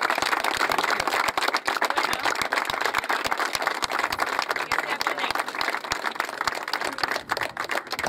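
A small group of people applauding with fast hand claps, thinning out near the end.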